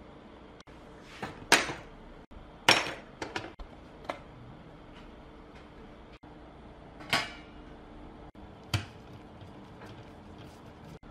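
Sharp plastic clacks and knocks from a Bluetooth speaker's plastic housing and parts being taken apart and handled: about six separate hits, the two loudest in the first three seconds, over a faint steady hum.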